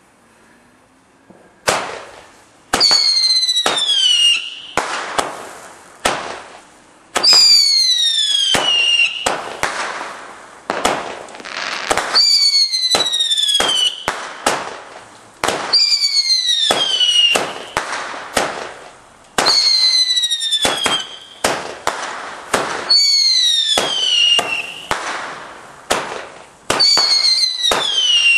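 Dynasty 'Singing Peacocks' firework going off: seven loud whistles, each starting with a sharp bang and falling in pitch over about a second and a half, about every four seconds, with more sharp bangs between them. The first bang comes about two seconds in.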